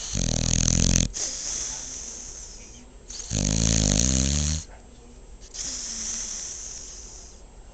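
A sleeping dog snoring loudly: two long, rattling snores, one at the start and one about three seconds in, with softer breathy hissing between them.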